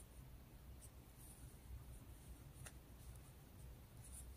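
Near silence: the faint rustle of a 3.5 mm metal crochet hook drawing combed cotton yarn through stitches, with a few small ticks, the clearest about two and a half seconds in.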